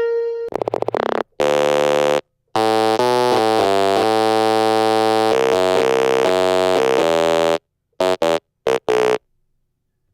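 Serum 2 synthesizer lead preset played on its own. It opens with a short note and a quick stuttering tone, then runs sustained chords that change pitch for about five seconds, and ends with a few short stabs before cutting off.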